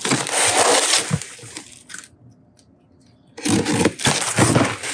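Cardboard box being opened, its packing tape cut and torn: two stretches of tearing, scraping noise, the first lasting about two seconds and the second starting about three and a half seconds in.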